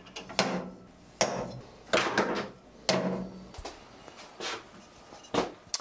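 A steel table saw arbor nut dropped again and again into the saw cabinet, clinking against rare-earth magnets and metal: about seven sharp clinks roughly a second apart, each with a short ring.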